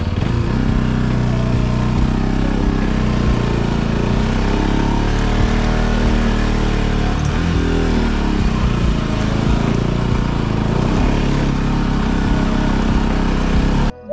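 Motorcycle engine running as the bike is ridden, its pitch rising and falling with the throttle. It cuts off suddenly near the end.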